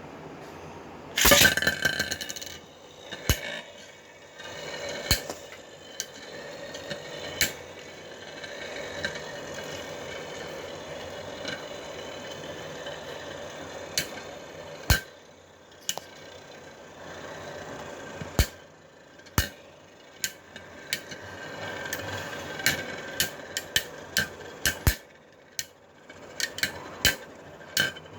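Two Metal Fight Beyblade spinning tops, L-Drago Destructor and Cosmic Pegasus, battling: a loud rasping launch burst about a second in, then a steady whirring of the spinning tops broken by many sharp clicks as they strike each other and the stadium wall.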